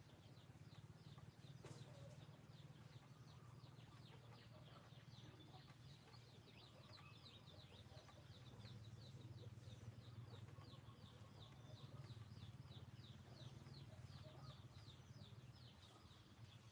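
Faint rural ambience: a rapid, steady run of high chirps, about four a second, over a low steady hum.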